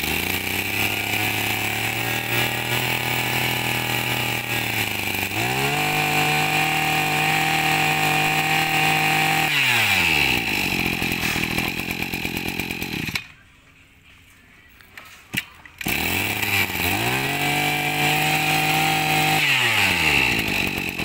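26cc two-stroke brush cutter engine (34 mm bore) running: idling, revved up about five seconds in and held, then dropping back to idle and shutting off. After a short pause it starts again, idles, revs up and falls back to idle near the end.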